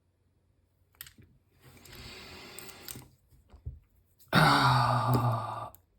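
A man's soft breathy sigh, then a louder low groan held at one pitch for about a second and a half, with a few faint clicks between. The sounds come from a lockpicker puzzled that the picked lock won't open.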